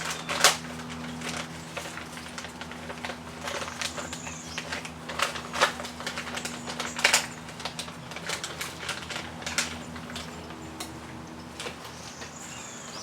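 Irregular clicks and clinks of a metal exhaust pipe clamp and fittings being handled and fitted, over a steady low hum.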